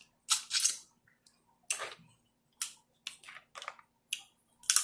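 Close-up mukbang eating sounds from a seafood boil: about six short, wet smacking and crackling mouth and shell noises, spaced irregularly.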